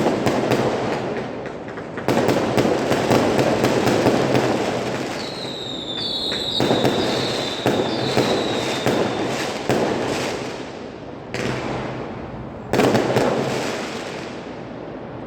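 Lunar New Year fireworks and firecrackers crackling in a dense, rapid barrage, with several louder bangs. From about five to nine seconds in, a shrill, wavering whistle rises above the crackle.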